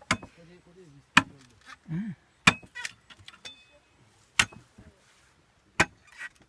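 Five sharp blows of a hand tool striking something, spaced irregularly about one to two seconds apart, with low voices murmuring between the first few.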